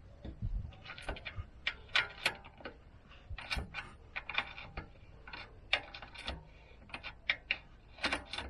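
Metallic clicking from hand tools at work, in irregular single clicks and short quick runs, like a socket ratchet being worked back and forth.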